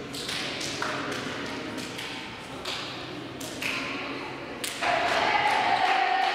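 Volleyball hits: several sharp thuds of the ball being struck during play. About five seconds in, loud cheering and shouting from many voices breaks out.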